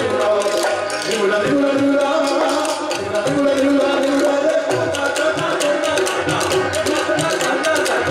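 Live Rajasthani folk music: a male singer's held melodic lines over seated string players and drums beating a quick, steady rhythm.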